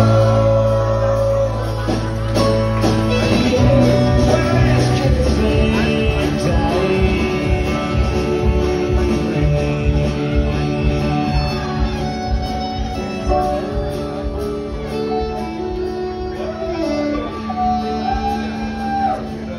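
Live country band playing an instrumental passage, the fiddle carrying the melody over guitars, bass and drums.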